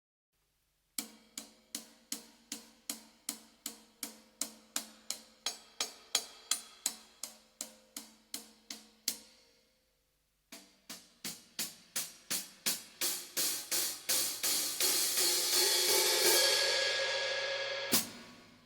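15-inch Pergamon Blacksmith hi-hat cymbals played with a stick in a steady beat of about two and a half strokes a second, each stroke dying away quickly. After a short pause a second run of strokes builds into a louder, lasting wash, ending in one sharp hit near the end.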